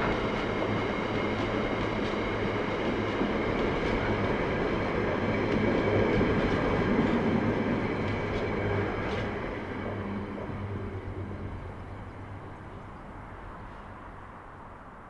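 Container freight train's wagons rolling past on the rails, a steady noise with a high ringing over it. It is loudest a little past halfway, then fades away as the end of the train draws off.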